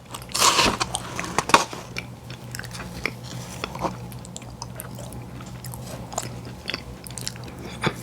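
Close-up eating of ice cream and cookies: a big bite about half a second in and a sharp crunch near one and a half seconds, then steady chewing with small clicks.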